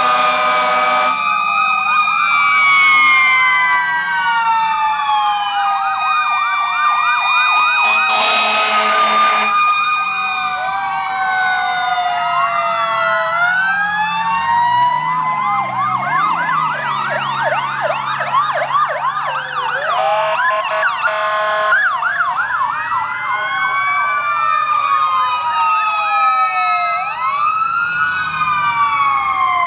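Several fire truck sirens sounding at once, overlapping slow rising-and-falling wails and fast yelps. Loud horn blasts come at the start and again about eight seconds in.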